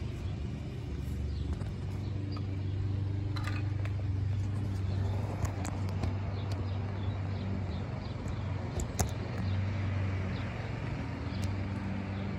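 Street traffic: a steady low engine hum from a road vehicle, with a few faint clicks.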